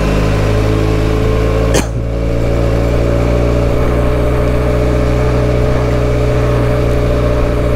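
Benelli TRK 502's parallel-twin engine running at steady low revs on a slow climb, with one sharp click about two seconds in.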